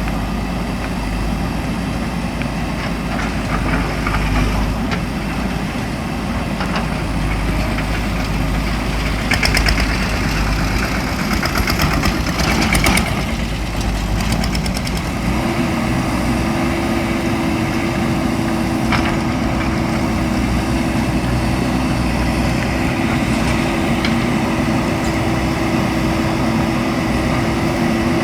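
JCB backhoe loader's diesel engine running steadily, with a spell of rapid rattling about nine to thirteen seconds in. About halfway through, a steady whine joins the engine and holds to the end.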